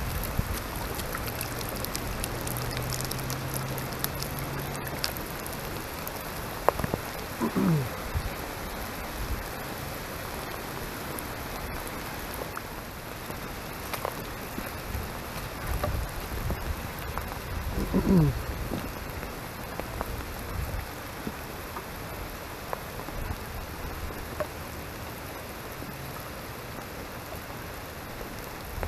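Steady rain falling on wet soil, grass and pavement. Twice a brief falling tone stands out over it.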